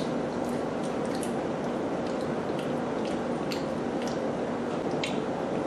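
Small wet clicks and squishes of lobster shell being picked and pulled apart by hand to get at the meat, scattered irregularly over a steady faint hum.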